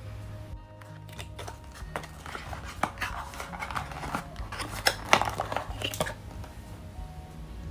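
Cardboard perfume box being opened by hand: a run of rustles, scrapes and sharp clicks as the flap is lifted and the inner packaging is pulled out, loudest about five seconds in, over steady background music.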